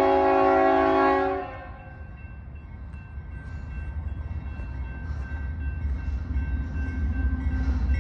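Union Pacific diesel locomotives' air horn blowing a chord, which cuts off about a second and a half in. Then the low rumble of the approaching locomotives grows steadily louder.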